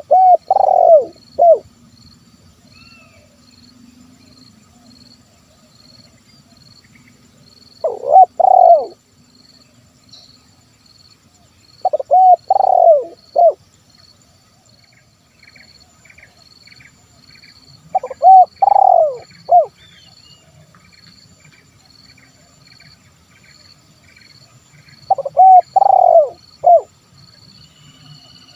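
Spotted dove (tekukur) cooing: five phrases of a few low, rounded coos, spaced several seconds apart. Faint high chirps of a small bird repeat in the second half.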